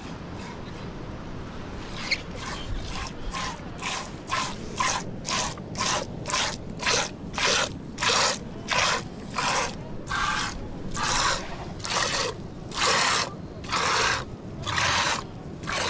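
Rhythmic scraping strokes begin about two seconds in. They come quickly at first, then slow to about one longer stroke a second.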